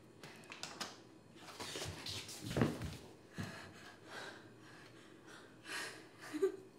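A closet door swings open with a thump about two and a half seconds in, followed by a softer knock.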